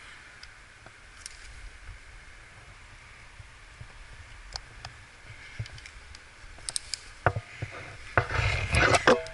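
Close scuffs, taps and knocks of a climber's hands, shoes and gear against rock, picked up by a body-mounted camera, with a few sharp knocks and then a louder burst of scraping and rustling near the end.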